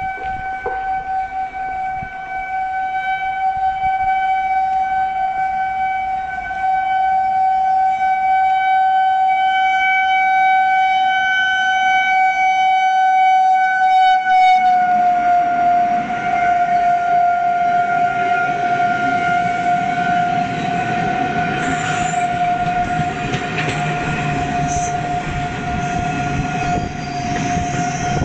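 Indian Railways electric locomotive sounding one long, steady horn as it approaches and passes at speed. About halfway through the horn's pitch drops slightly as the locomotive goes by, and the rumble and clatter of the coaches on the rails rises beneath it.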